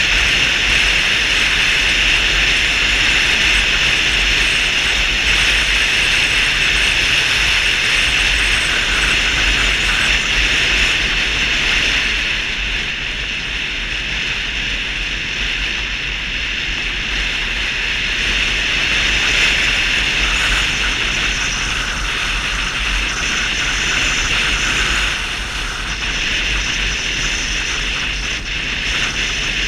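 Steady wind rush on the microphone and road noise from a Vespa 250 GTS scooter riding at road speed, a constant hiss over a low rumble that eases slightly about twelve seconds in.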